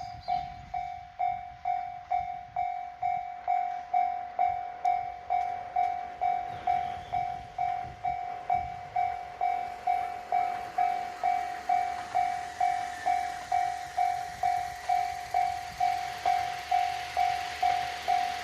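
Japanese level-crossing warning bell ringing, a single decaying tone repeated a little over twice a second. An approaching diesel train's noise grows beneath it over the last few seconds.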